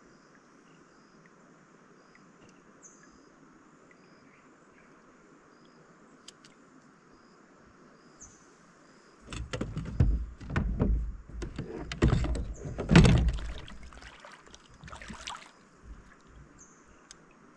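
A faint steady background with a short high call repeating every few seconds. About nine seconds in comes a run of heavy knocks and rumbling lasting about five seconds, loudest near the end of the run, then a few fainter knocks.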